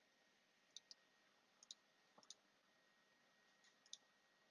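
Faint, sparse clicks, mostly in quick pairs: about four pairs over a few seconds. They come from a computer mouse or keyboard as lighting-effect settings are clicked through.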